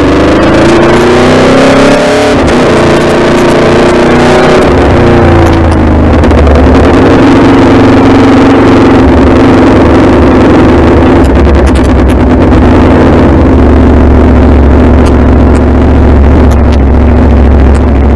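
Aprilia Tuono V4 motorcycle's V4 engine under way, heard loud from the rider's helmet with wind noise. Its note rises in pitch over the first couple of seconds, dips briefly, then settles to a steady cruising tone.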